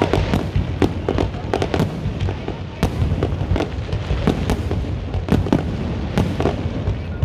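Aerial fireworks display: a rapid, irregular string of bangs and crackles from shells bursting overhead, over a continuous low rumble.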